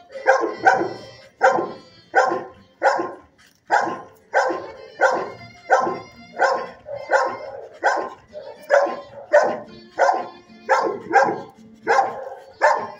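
A dog barking over and over in a steady run, a little more than one bark a second, without a break.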